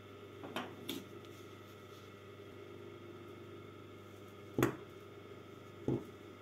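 Tailor's shears snipping fabric at a pocket edge: two short, sharp snips about a second and a half apart near the end, the first the louder. A couple of faint handling clicks come about a second in.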